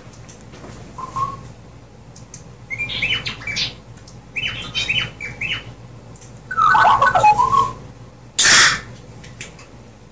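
R2-D2-style droid beeps and whistles from the helmets' speakers, which turn the wearers' speech into droid sounds. They come in several short bursts of quick chirps, the loudest a warbling run about seven seconds in. About a second later there is a short, loud hiss.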